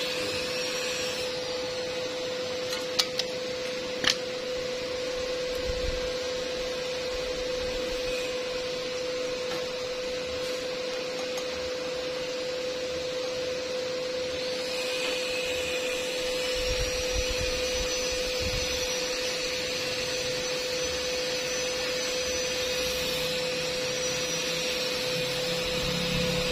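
Steady machine hum and hiss with a constant mid-pitched whine while no arc is struck, with two sharp clicks about three and four seconds in. Faint, high, wavering whistles come in about halfway through.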